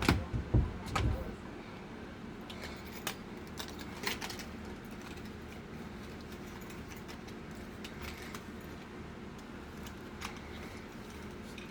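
Keys clinking and jangling as they are handled, with several heavy bumps in the first second and scattered light clicks after, over a steady low hum.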